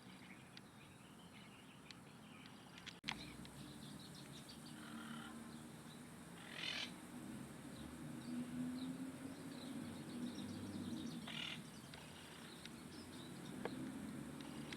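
Wild birds calling, with two short harsh calls partway through and scattered thin chirps, over a steady low background rumble. A sharp click about three seconds in.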